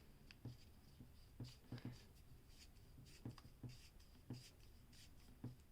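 Faint handling noise: a dozen or so scattered small clicks and rubs of plastic tool parts being fitted together by hand.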